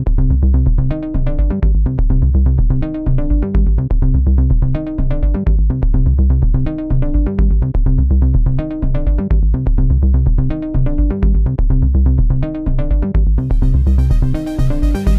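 Electronic dance music with a steady beat and a repeating synth riff, its treble muffled until near the end, when the full sound opens back up.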